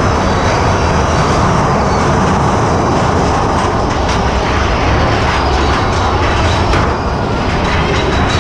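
Big Thunder Mountain Railroad mine-train roller coaster's cars running along the track, a loud, steady rumble and rattle heard from on board.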